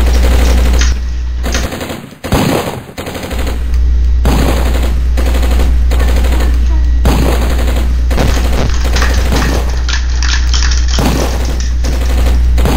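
Rapid, repeated gunfire-like bangs in bursts over a steady low hum, briefly dropping away about two seconds in.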